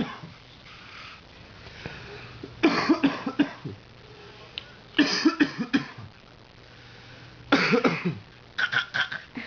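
A man and a toddler copying him, coughing on purpose in four short bouts of several quick coughs each, spaced about two to three seconds apart.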